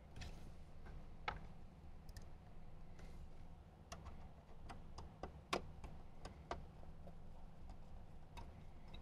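Faint, irregular metallic clicks and ticks of a hand screwdriver turning small metal screws into a car-stereo mounting bracket, with two sharper clicks, one about a second in and one a little past halfway, over a low steady hum.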